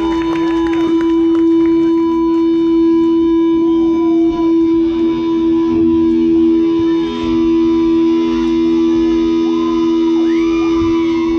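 Live rock band's sustained drone: electric guitars through effects pedals hold one steady low note, while warbling, sliding tones rise and fall over it. A few sharp clicks in the first second or two.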